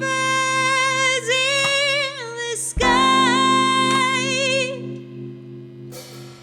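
Female voice singing a wordless, long-held melody with vibrato over steady keyboard chords, in two long phrases that fade out about five seconds in.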